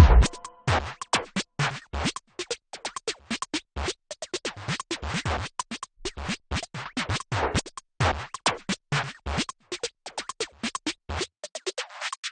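Background music in a sparse percussive passage: quick, irregular clicking and scratch-like hits with little sustained melody.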